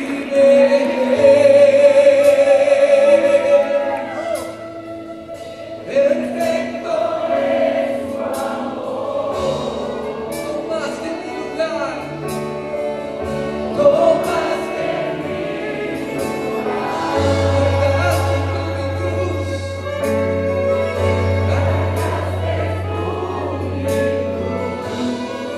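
Church choir singing a worship song with a live band: sustained bass notes underneath and regular drum and cymbal strokes.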